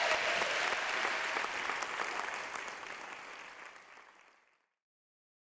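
Audience applause, many people clapping, fading out over about four seconds and ending in silence near the end.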